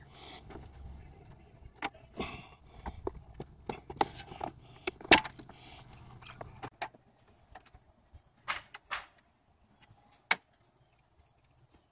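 Hand-handling noises of a lower radiator hose and its spring clamp being worked onto the radiator port: scattered clicks, light metallic clinks and rustling, busiest over the first six seconds. Then a few isolated clicks, the sharpest about ten seconds in.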